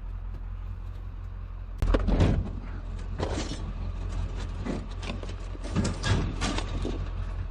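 Irregular clunks, rattles and scraping of a heavy metal exercise machine being handled, the loudest knocks a little under two seconds in, over a steady low hum.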